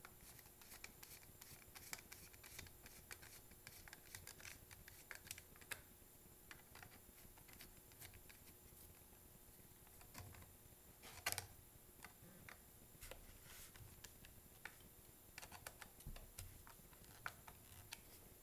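Faint, scattered clicks and scrapes of a screwdriver turning in the carburetor mounting screws of an Echo SRM-230 string trimmer, with one louder click about two-thirds through.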